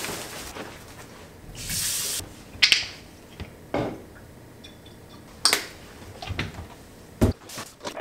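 Washing up at a stainless-steel kitchen sink: the tap runs in a short spell of splashing water, and dishes and a glass bottle knock and clink against the sink a few times.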